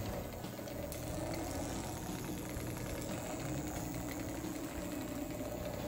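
Lionel Scale Hudson locomotive chassis with its shell off, running slowly along three-rail track: the steady whir of its electric motor and gearing with the light rattle of the drive wheels and side rods. The running gear is binding, which the owner hopes is only a bent side rod.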